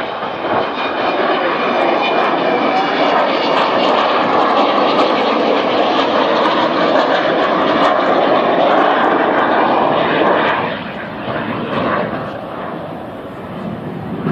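Avro Vulcan XH558's four Rolls-Royce Olympus turbojets in a low flypast: a loud jet rush that swells over the first couple of seconds, holds, then fades about ten seconds in as the bomber passes. A faint high steady whistle sits over the rush in the first few seconds.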